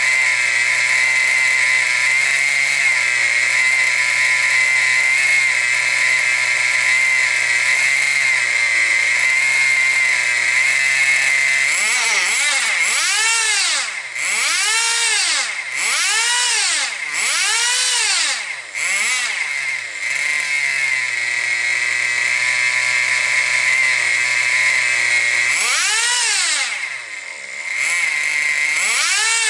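Tamiya TGX's small two-stroke glow-fuel (nitro) engine running with a high, buzzing idle. About 12 seconds in it is revved up and back down six or so times in quick succession, settles to idle, then is revved twice more near the end.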